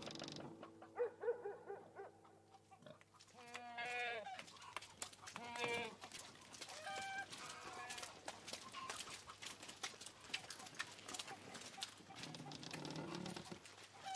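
Goats bleating a few times in short quavering calls, with chickens clucking. From about halfway through, a patter of quick footsteps and clatter as a group of men runs across the yard.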